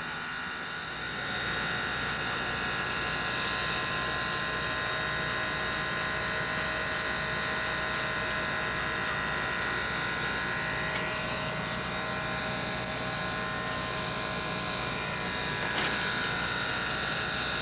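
Steam locomotive running: a steady mechanical whine over a low rumble that swells about a second in, with a brief louder surge near the end.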